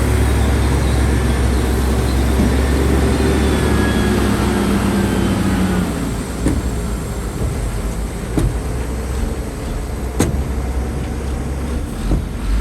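Heavy earthmoving machine's diesel engine running loud and steady, easing off about halfway through. Four sharp metallic clanks are spread over the second half.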